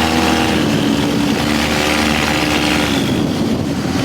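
ATV engine running under way, its note dropping slightly about half a second in and then holding steady.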